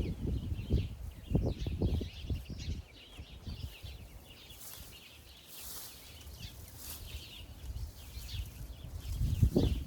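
Small birds chirping throughout, with a run of dull thumps of digging in garden soil in the first couple of seconds and again near the end.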